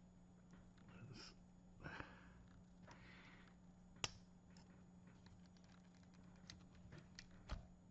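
Near silence, with a few faint sharp clicks and taps from small parts being handled during a laptop repair, and a few soft sniffs or breaths.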